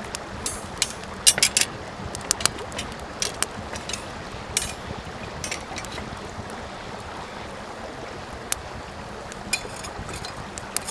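Wood fire burning: a steady hiss with irregular sharp crackles and pops, thickest in the first few seconds and sparser after.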